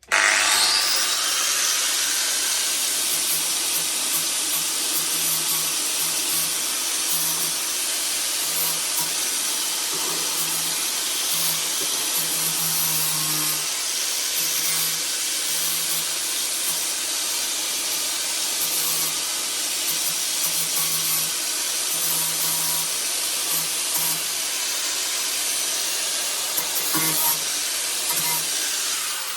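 Angle grinder grinding down fresh welds on a steel decklid hinge: a loud, steady hiss of abrasive on metal that starts abruptly, holds for nearly half a minute, then dies away near the end as the disc spins down.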